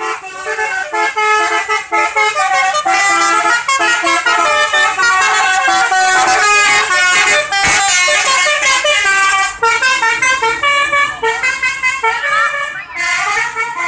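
Multi-tone 'telolet basuri' bus horn playing a fast tune, the notes stepping quickly one after another, with a few rising slides near the end. Loud throughout.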